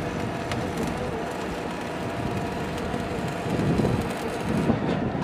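Truck-mounted borewell drilling rig's engine running steadily, a dense low mechanical noise with a faint steady hum.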